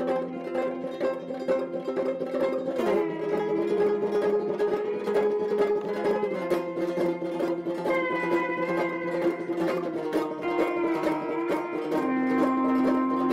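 Open-back banjo played with rapid, steady picking over long held drone notes that change pitch a few times.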